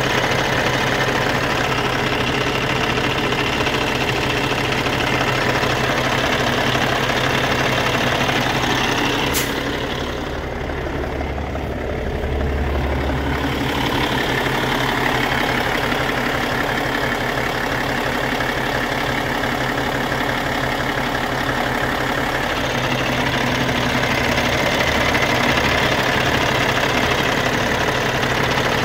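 Cummins ISX15 inline-six diesel of a 2014 Peterbilt 367 idling steadily. About ten seconds in there is a click, and the sound goes duller for a few seconds before it comes back.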